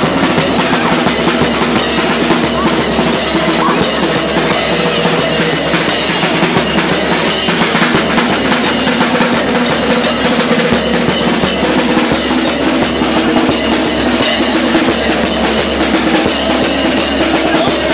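Drums beating a fast, steady dance rhythm of about five strokes a second, the loud street drumming that accompanies the dancing giants.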